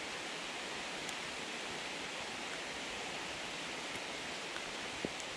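Heavy rain falling steadily on a pond, an even hiss of drops on the water, with a few faint ticks.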